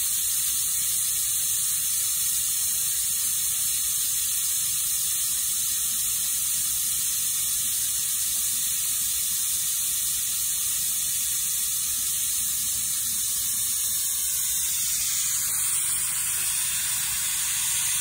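Compressed air hissing steadily through an EASYBERG pneumatic oil extractor as it pulls vacuum to draw engine oil into its tank.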